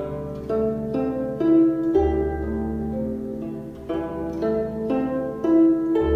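Slow, soft instrumental music: a melody of plucked notes, each starting sharply and fading, over a held low bass note.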